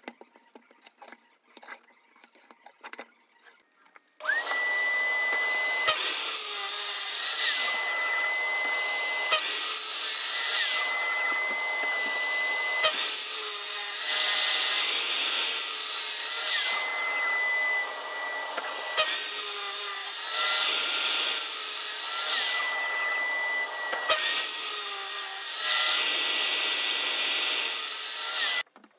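Miter saw running continuously while its blade is lowered again and again into melamine-faced chipboard, cutting a row of shallow grooves, a fresh cut about every three seconds over a steady motor whine. It starts about four seconds in, after a few faint taps of marker and ruler on the board, and cuts off sharply near the end.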